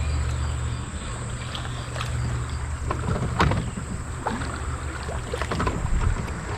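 Boat out on the water with a steady low rumble of wind on the microphone, and a run of short knocks and clicks from about three to six seconds in.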